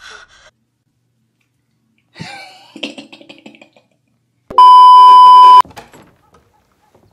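A loud, steady censor bleep tone lasting about a second, starting and stopping abruptly about four and a half seconds in. It comes after a short stretch of a person's voice.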